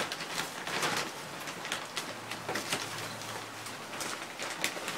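Plastic bags rustling and crinkling as hands rummage in them, with many short sharp crackles.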